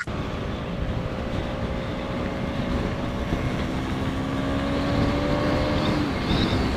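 Motorcycle engine pulling steadily under way, its note slowly climbing, with wind rushing over the helmet-mounted microphone.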